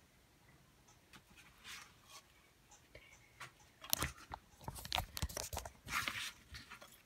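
Close handling noises: a few faint clicks at first, then a dense run of sharp clicks, crunches and scrapes from about four seconds in.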